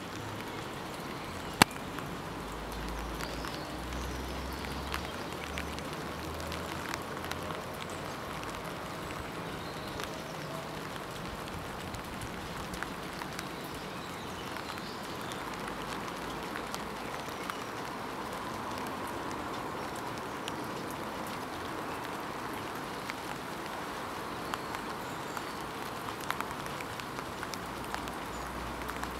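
Steady rain falling, an even hiss dotted with scattered drip ticks, with one sharp, louder tick about a second and a half in.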